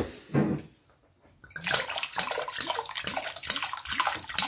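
White wine poured from a bottle into a stainless steel pot, splashing into the pan juices around a braised moose roast; the pouring starts about a second and a half in and keeps running.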